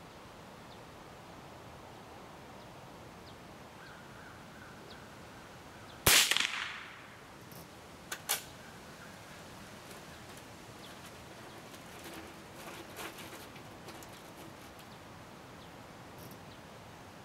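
A single gunshot about six seconds in, ringing out for most of a second; the chronograph clocks this shot at 1062 feet per second. About two seconds later come two short, sharp clicks.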